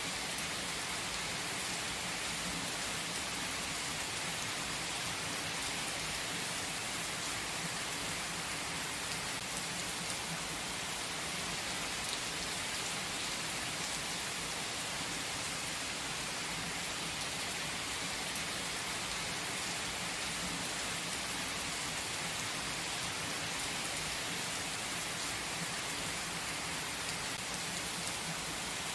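Steady rain falling on forest trees: an even hiss with faint ticks of single drops.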